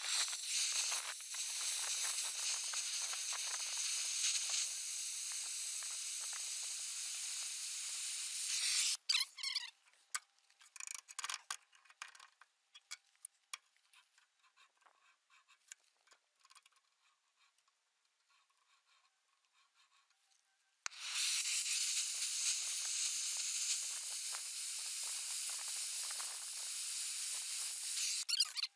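Track-mounted cutting torch cutting steel plate: a steady high hiss of the torch and molten metal, which stops after about nine seconds, leaving light clicks and taps, and starts again for a second cut about twenty-one seconds in.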